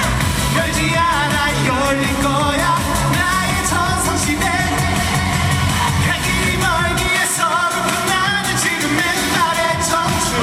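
A trot song performed live: a male voice singing a wavering, vibrato-laden melody over pop-style accompaniment, the bass dropping out for about a second around seven seconds in.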